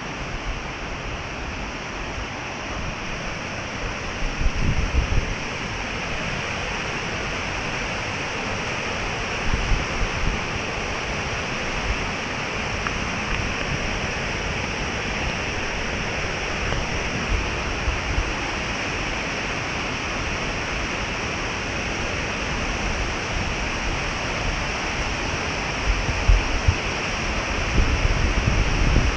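Steady rush of running water, with low gusts of wind buffeting the microphone about four seconds in and again near the end.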